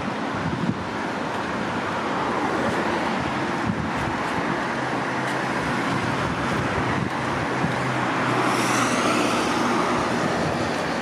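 Steady traffic noise of cars and trucks passing on a multi-lane highway. A heavy vehicle's engine hum comes up in the second half and grows slightly louder as it approaches.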